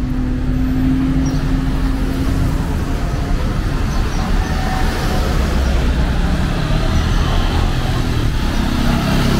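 Street traffic: cars driving past close by, a steady low rumble of engines and tyres on the road, with one engine's steady hum fading out a few seconds in.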